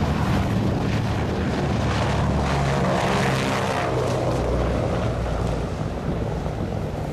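Lockheed C-121C Super Constellation's four Wright R-3350 radial piston engines running at takeoff power as the airliner rolls past and lifts off, a loud steady propeller drone that eases a little after about five and a half seconds.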